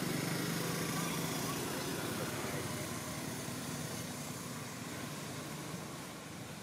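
Low engine hum from a distant vehicle, fading away over the first couple of seconds, over a steady outdoor hiss.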